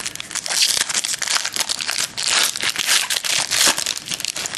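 Crinkly clear plastic wrapping being pulled open and handled as a trading-card pack is unwrapped: a dense, steady crackling and rustling.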